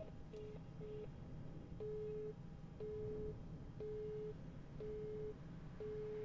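Telephone busy signal: a single steady mid-pitched tone beeping about once a second, each beep about half a second long. It means the number called is engaged.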